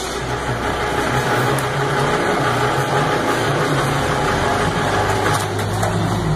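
Steady mechanical running noise with a low hum, like a motor or machine running, and a few light clicks near the end.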